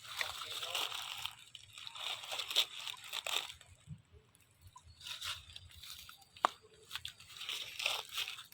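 Crunching and crackling in irregular bursts, with a single sharp click about six and a half seconds in.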